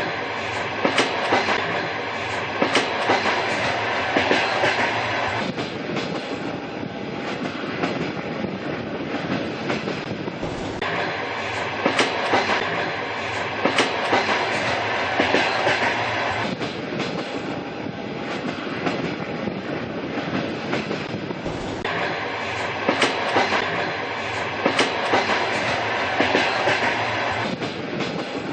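Train running on the rails: a steady rumble of the carriages with sharp clickety-clack of the wheels passing over rail joints. The same stretch of sound repeats about every eleven seconds.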